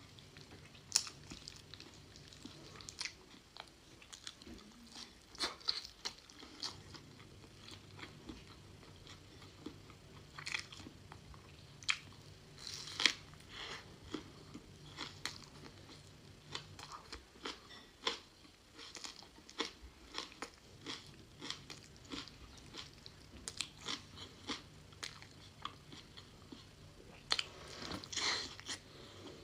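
A person biting and chewing food, with irregular crisp clicks and small crunches between quieter chewing. It is picked up without a clip-on microphone, so it sounds fairly distant.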